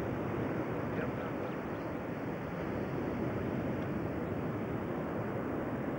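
Steady rushing outdoor noise, even throughout with no distinct events, like wind or surf heard through a camcorder microphone.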